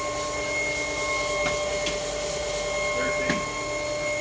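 Steady hum of running machinery with a constant whine held at several pitches, and a couple of faint clicks.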